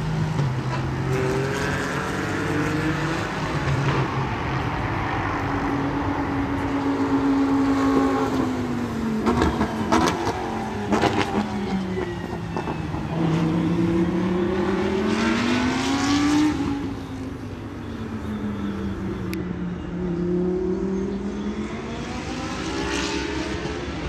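Race car engines running at speed, their pitch rising and falling in long sweeps every few seconds, with a few sharp clicks near the middle.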